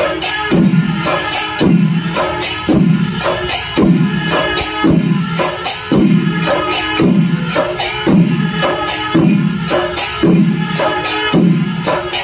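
Chenda melam: chenda drums and ilathalam cymbals playing a steady beat. Deep drum strokes come about one and a half times a second, with bright cymbal clashes between them.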